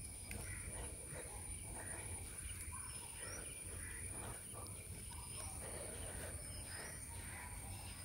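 Steady high-pitched insect drone with a few short bird chirps over it.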